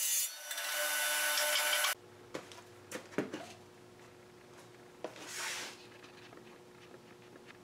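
Portable table saw running, its blade spinning with a steady whine and hiss, cutting off abruptly about two seconds in. After that comes a faint steady hum with a few light knocks and a brief hiss.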